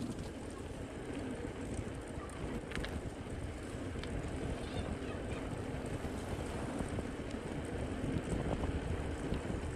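Wind buffeting the microphone over the rumble of a bicycle's tyres on asphalt while riding, a steady noisy rush with a few faint ticks.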